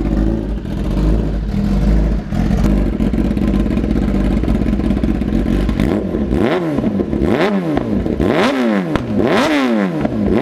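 Kawasaki ZX10R inline-four engine with an SC-Project exhaust idling with a steady rumble. From about six seconds in it is blipped in repeated sharp revs, roughly one a second, each rising and falling in pitch.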